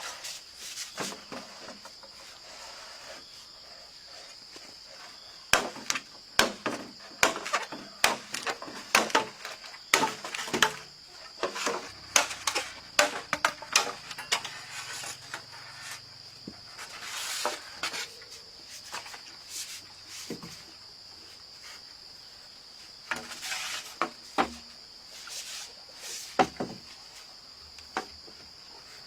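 Insects droning at a steady high pitch, with irregular sharp knocks and clatter in a busy stretch from about five to eleven seconds in and again near the end.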